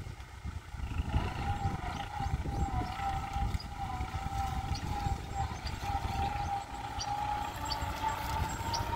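Kubota tractor's diesel engine running steadily under load as it pulls a tined cultivator through a sugarcane field. A steady whine joins about a second in and rises slowly in pitch.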